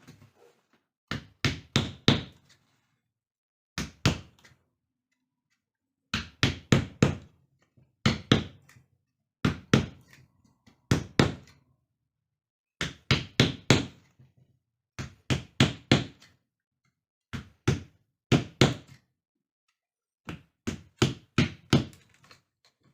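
Repeated hammering: sharp knocks in quick groups of two to five blows, with pauses of a second or two between groups.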